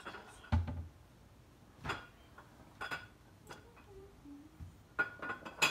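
Irregular light clicks and taps of small hard objects being handled close to the phone, with a dull thump about half a second in.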